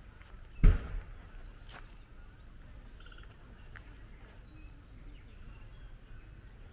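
A single heavy thump about a second in, then quiet outdoor ambience with a few faint footsteps on a gravel path and thin, distant bird chirps.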